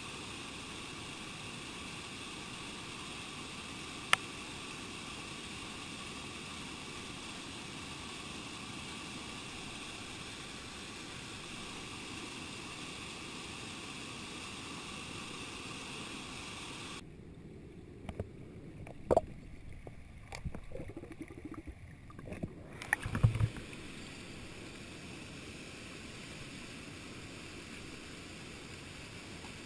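Steady rush of flowing stream water, with a single sharp click about four seconds in. Later the sound goes muffled for several seconds, broken by a few knocks and clunks from handling the camera and gear, the loudest near the end of that stretch, before the steady water noise returns.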